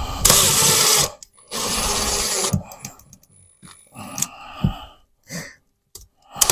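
Cordless drill driving a screw into a wooden backing piece behind drywall, in two runs of about a second each, followed by lighter knocks and clicks from handling.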